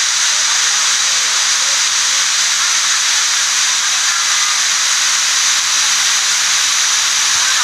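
Waterfall running: a loud, steady hiss of falling water, unbroken throughout.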